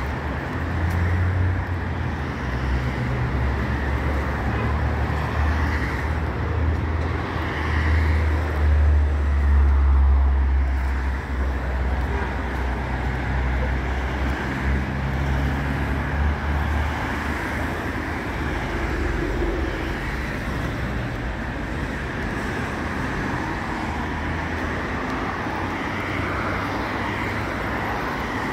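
Road traffic passing on a multi-lane city avenue. A heavy low rumble of passing vehicles builds to its loudest about ten seconds in and dies away past the middle, leaving a steadier, lighter hum of cars.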